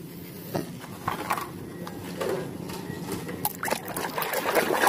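Water sloshing and splashing in a plastic basin as a hand rinses muddy toys, growing louder near the end, with a few light knocks.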